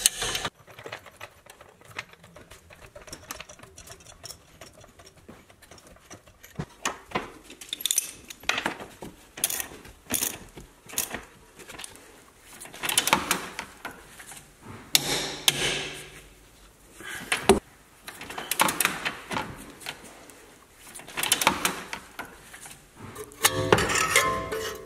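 Ratchet wrench clicking in quick bursts while a front suspension control arm bolt is tightened, between scattered metal knocks and clinks of tools on the suspension parts.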